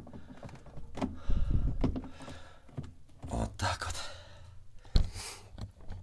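Handling noise from a refrigerator's plastic thermostat housing and regulator knob: scattered knocks, clicks and rustling as the parts are pressed home, with one sharp click about five seconds in.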